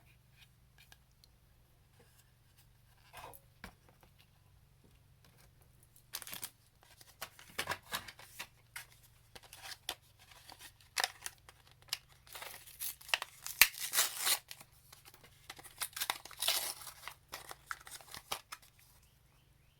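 Small plastic packaging being torn open and crinkled by hand: quiet at first, then a run of sharp crackles and tearing from about six seconds in, loudest in the second half.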